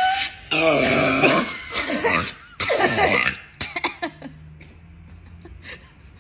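A woman belching: a long, loud burp starting about half a second in, then a second, shorter burp that falls in pitch, with laughter around them.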